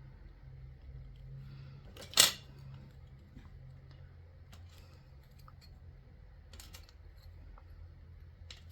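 Clay tools being handled on a work table: scattered light clicks, with one sharp clack about two seconds in and a few more clicks near the end, over a steady low hum.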